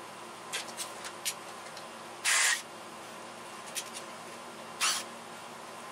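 Small 12-volt cordless impact driver run in two short bursts, about two seconds in and again near the end, backing out the bolts of a motorcycle engine's stator cover, with a few light tool clicks in between.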